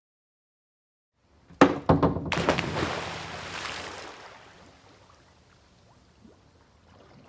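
A sharp hit about a second and a half in, then a big splash of something plunging into pool water. The churning water fades over a few seconds into a few small drips.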